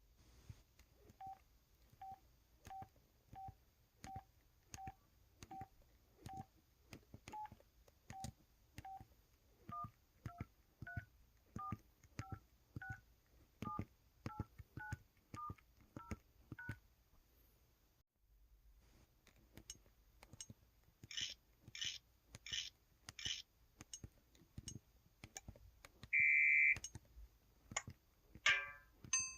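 EV-W350 handset's buttons being pressed one after another, each press giving a click and a short beep, about one to two a second, the beeps stepping between a few different pitches. After a short pause about 18 s in, the key sounds switch to the handset's drum-set key tones, drum-like hits in place of the beeps.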